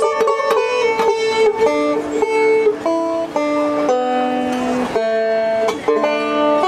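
Bluegrass band playing an instrumental passage without vocals: banjo and mandolins picking, with fiddle and upright bass.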